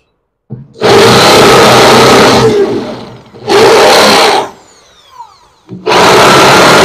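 Corded electric drill boring a shallow 18 mm recess into plywood with an 18 mm wood bit. It runs in three bursts, the first about two seconds long, with the motor winding down in a falling whine between them.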